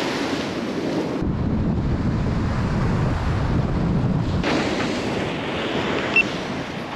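Gulf surf breaking and washing up the beach, a steady rushing noise, with wind buffeting the microphone and rumbling more heavily for a few seconds in the middle.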